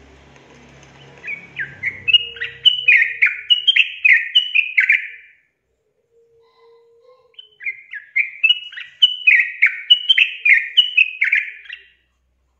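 Yellow-vented bulbul (trucukan) singing two phrases of quick, bubbly notes, each note dropping in pitch, with a pause of about two seconds between the phrases.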